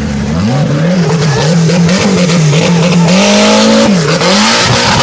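Off-road buggy's engine revving up and down over and over, then held high and loud as it drives through a water pit and claws up a muddy bank. A rising hiss of spraying water and mud from the spinning tyres builds over the last couple of seconds.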